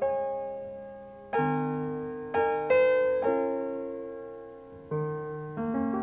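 Slow solo piano music: notes and chords struck every second or so and left to ring out and fade.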